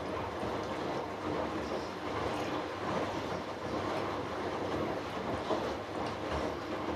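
Hoover Dynamic Next washing machine in its final rinse, the drum turning a load of darks with water and clothes sloshing and light irregular knocks.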